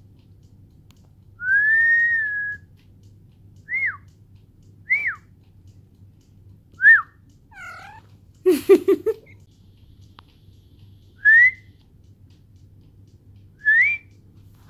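A person whistling short, pure notes at a cat: one longer note near the start, then five brief rising or falling chirps a second or more apart. Just before the middle the cat gives a short call, followed by a quick cluster of loud, close knocks and rustles as its fur presses against the phone.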